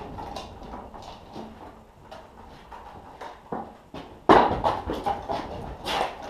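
Hand pallet jack moving a loaded pallet of split firewood across a concrete floor, with irregular knocks and rattles. A sudden loud bang about four seconds in, and another clatter near the end.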